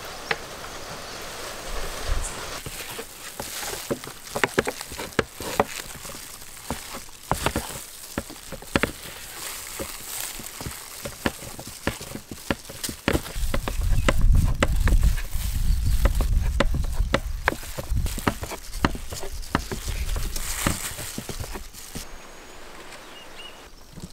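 Knives chopping bars of dark chocolate on a wooden board: many sharp, irregular knocks and cracks, with a low rumble for a few seconds in the middle.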